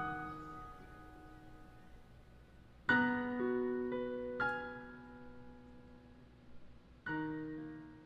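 Slow, sparse solo piano music: a few chords struck a couple of seconds apart, each left to ring and fade.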